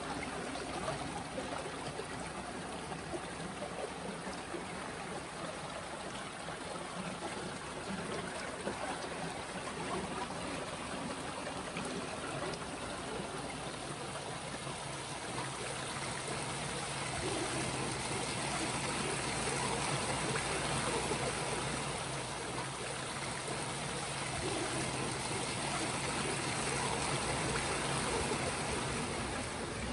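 A stream of water flowing, a steady rush with trickling, a little louder in the second half.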